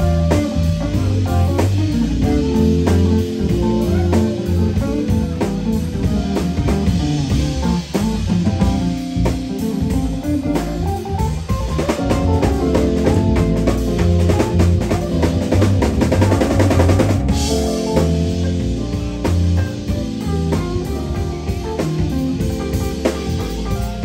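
Live instrumental groove: a semi-hollow electric guitar solos over electric bass and a drum kit. About halfway through, the guitar plays a flurry of fast repeated notes.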